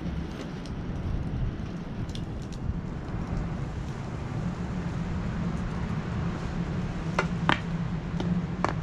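Wind rumbling on the microphone, with a few sharp clicks near the end.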